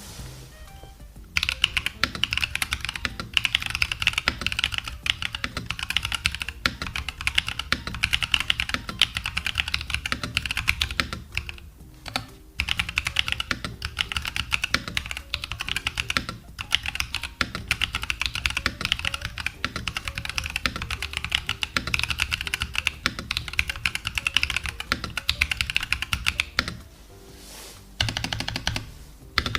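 Fast typing on a mechanical keyboard fitted with Aregs × Kailh Purple Potato tactile switches, all-POM housings and stems: a dense run of key clacks that breaks off briefly about twelve seconds in and again near the end. Background music plays underneath.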